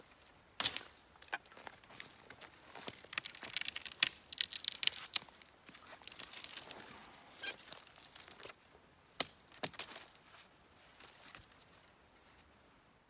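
Irregular crinkling and crackling with sharp clicks scattered through it, busiest in the middle and dying away near the end.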